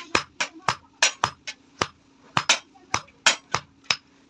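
Hand hammer forging a red-hot iron bar on an anvil: a quick run of sharp metallic blows, about three or four a second, with a short pause about two seconds in.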